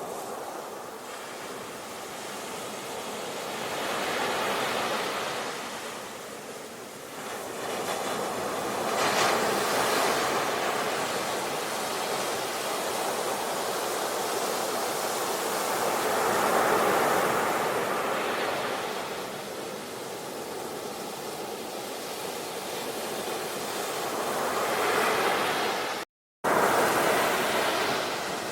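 Ocean waves washing in and drawing back, the surf noise swelling and fading every several seconds. The sound cuts out completely for a split second near the end.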